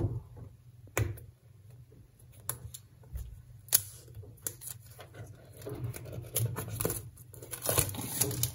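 Plastic shrink-wrap being scratched at with a fingernail and peeled off a phone box. Scattered scratches and ticks come first, then the film crinkles and tears more and more densely toward the end.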